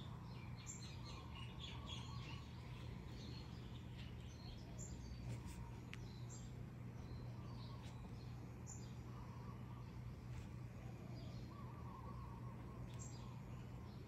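Small birds chirping and twittering in the background, many short calls scattered throughout, over a steady low hum.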